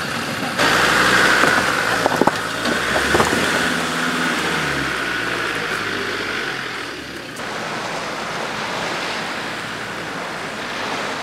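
Land Rover Defender Td5's five-cylinder turbodiesel working slowly over a rocky off-road track, with a couple of sharp knocks about two and three seconds in and the revs dropping away midway. About seven seconds in it gives way to a steady wash of surf and wind.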